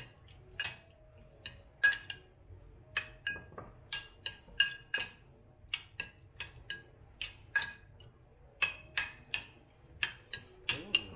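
Metal spoon clinking against the sides of a white ceramic bowl while stirring cubed salmon in its marinade: irregular bright clinks, roughly two a second, with a couple of short pauses.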